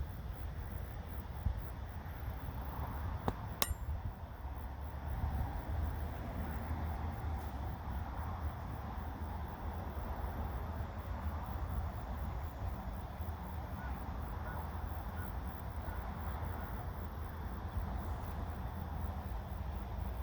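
Wind rumbling steadily on the microphone, with a faint, fast, high ticking in the background and a single sharp click about three and a half seconds in.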